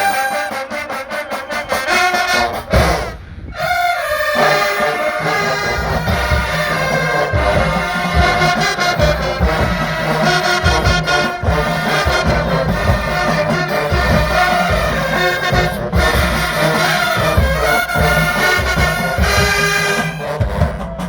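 Marching band brass section, trombones and trumpets, playing loudly over heavy drums. The music drops out briefly about three seconds in and comes back with a pounding low beat.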